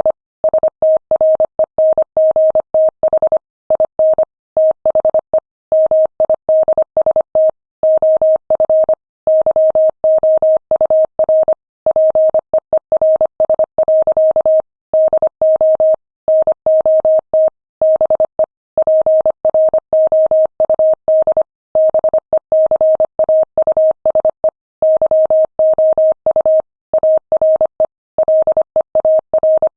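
Morse code sent at 25 words per minute: a single steady-pitched beep keyed rapidly on and off in dots and dashes, with short pauses between words.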